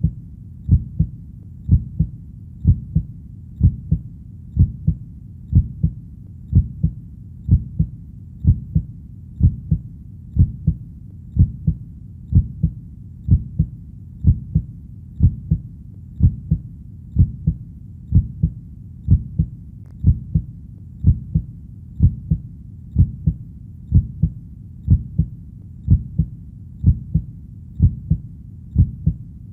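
Steady, slow heartbeat, each beat a low double thump (lub-dub), repeating about once a second.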